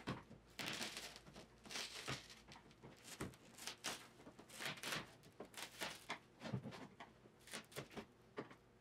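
Cracked windshield glass on a Triumph TR6 crackling and scraping as it is pried and broken out of its frame with a hand tool: an irregular run of sharp cracks and short scrapes.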